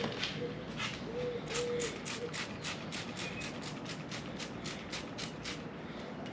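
A 400-grit sharpening stone is rubbed back and forth over the gasket deck surface of a 6.0 LS engine, a gritty scraping that starts uneven and settles about a second and a half in into quick, even strokes at about five a second. The stone is evening out the surface finish for the head gasket to seal, not taking off material.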